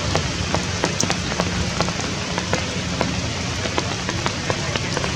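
Rain falling steadily, with many scattered sharp drop impacts over an even hiss and a low steady hum beneath.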